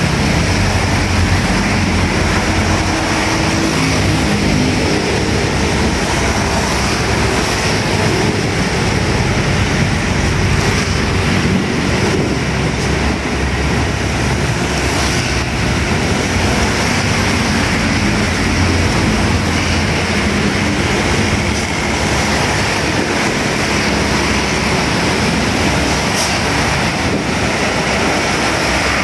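Steady stream of passing road traffic on wet asphalt: motorcycle, car and truck engines rumbling, with tyres hissing on the wet road surface.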